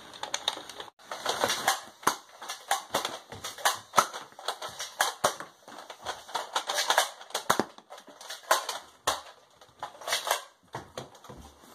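Irregular sharp plastic clicks and clacks of a Nerf blaster being worked by hand, its mechanism jammed.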